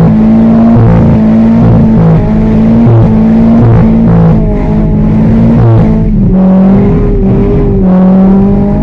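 Car engine running hard under repeated throttle, its pitch rising and dropping every second or so.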